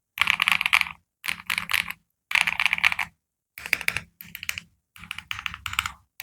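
Stock MMD KM40 40% mechanical keyboard being typed on: about six quick runs of rapid keystrokes, each under a second long, with brief silent pauses between them.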